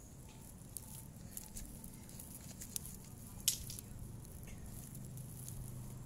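Faint rustling and handling noise close to the microphone: scattered soft clicks, a sharp one about three and a half seconds in, over a low steady rumble.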